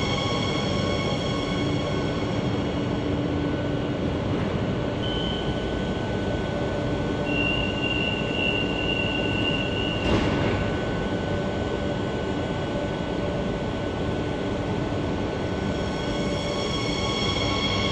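Madrid Metro 8000-series train slowing into the platform and stopping, then standing with several steady whining tones. A brief burst of noise comes about ten seconds in.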